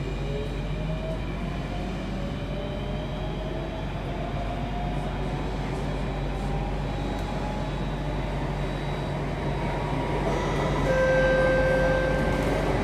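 Alstom Metropolis C830 metro train accelerating, heard from inside the car: its traction motor whine glides slowly upward in pitch over a steady low rumble. It grows louder near the end.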